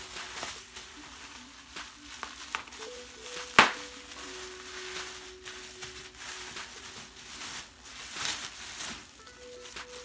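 Bubble wrap and plastic packaging crinkling and rustling as hands unwrap it, with one sharp, loud pop about three and a half seconds in.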